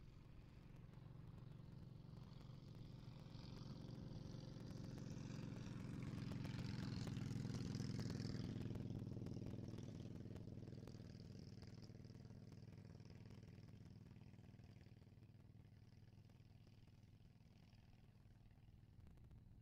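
A motor vehicle passing at a distance: a faint low engine and road hum swells to its loudest about eight seconds in, then slowly fades away.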